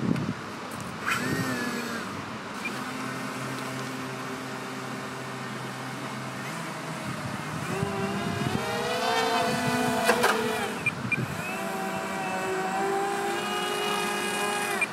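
Twin brushless electric motors spinning air propellers on a radio-controlled hydrofoil airboat, whining at varying throttle. The pitch climbs sharply about eight seconds in, then holds as a steady, higher whine.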